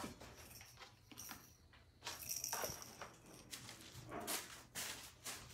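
A puppy moving about, with scattered faint clicks and light clinks and a brief burst of sound about two seconds in.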